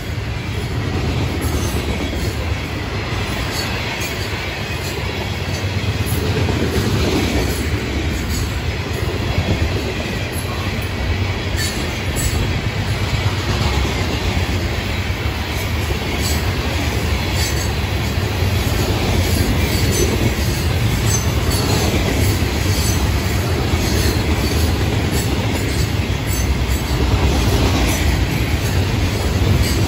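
Freight train cars rolling past, loaded rock and covered hopper cars: a steady rumble of steel wheels on rail with irregular sharp clicks.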